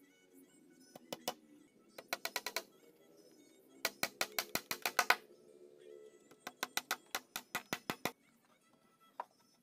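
Claw hammer driving nails into a wooden cabinet frame: several runs of quick, sharp blows, about six a second, with short pauses between them, and one last single blow near the end. Faint background music runs underneath.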